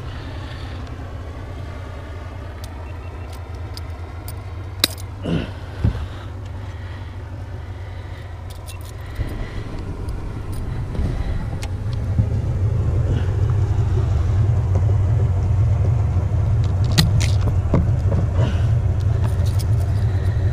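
Boat engine running steadily with a low rumble that grows louder about twelve seconds in. A few sharp clicks and knocks come in over it.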